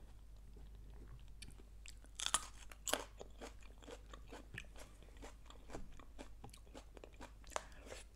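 A person biting and chewing crunchy food, with sharper crunches about two and three seconds in.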